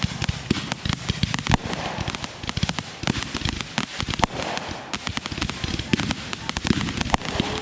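Fireworks going off in a rapid, unbroken barrage of sharp bangs and crackles.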